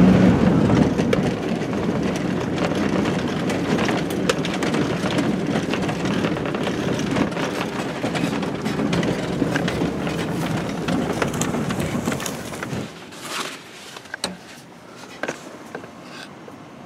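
A truck driving fast over a rough field, its engine and road noise steady with many small rattles and knocks from the cab. About 13 seconds in, the engine and road noise stop abruptly, leaving a few sharp clicks and knocks.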